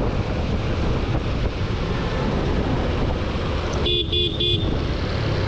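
Steady low rumble of a motorcycle ride with road and wind noise. About four seconds in, a vehicle horn gives three quick toots.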